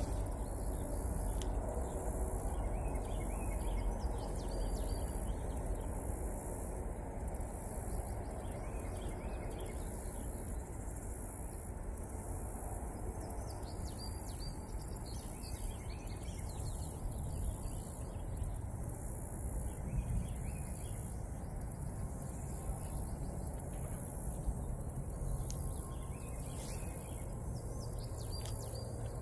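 Insect chorus: a steady, high-pitched pulsing drone, with scattered bird chirps and a low background rumble.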